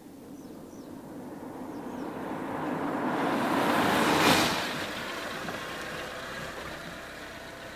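BMW 3 Series saloon approaching on the road, its engine and tyre noise growing louder to a peak about four seconds in as it pulls up, then dropping to a lower steady idle once it has stopped.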